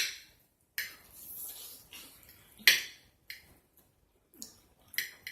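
Close-miked eating sounds: wet mouth smacks and chewing clicks, about six sharp ones spaced irregularly, the loudest right at the start.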